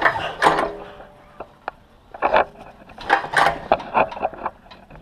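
Recoil starter of a 7 hp Loncin engine being pulled round slowly in short draws, turning the engine over by hand to bring the pump shaft's grub screw into line with the access hole. Several short strokes: one at the start, then a cluster from about two to four seconds in.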